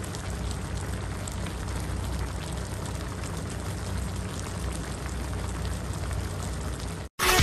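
Pinakbet stew of pork and vegetables simmering in a wok on a gas stove: a steady bubbling hiss with small crackling pops over a low hum. It cuts off shortly before the end, and music starts.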